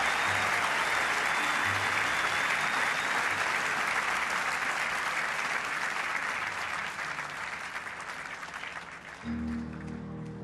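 Large audience applauding, the applause slowly dying away; about nine seconds in, soft music with low held notes begins.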